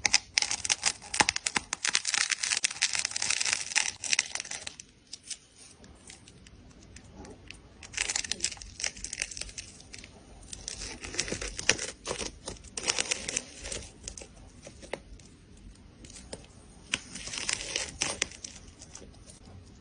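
A needle scratching and snapping through tightly wound layers of thread on a ball: crisp, crackly tearing in bursts, loudest at the start and in short spells later, with quieter scratching between.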